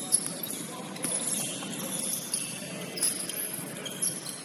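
Game sound in a gymnasium: a basketball dribbled on the hardwood with scattered knocks and ticks, over a steady high jingling.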